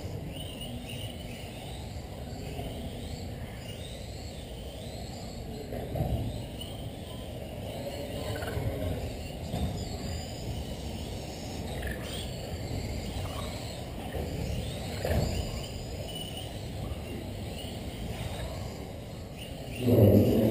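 Electric RC race cars running on a carpet track, their motors whining in short glides that rise and fall with the throttle, over steady hall noise, with a couple of brief knocks.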